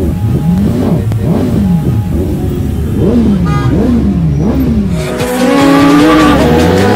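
Superbike engines revving in repeated throttle blips, the pitch rising and falling several times. About five seconds in, a louder intro sound effect takes over: a racing engine revving with a screeching hiss.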